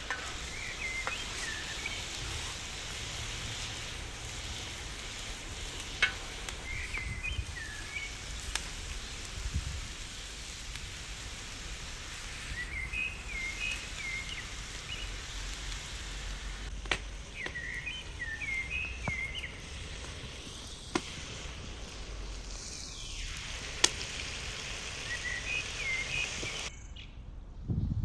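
Meat and vegetables sizzling steadily on a saj over a wood fire, with a few sharp crackles. A bird sings short chirping phrases every few seconds. The sizzle cuts off abruptly shortly before the end.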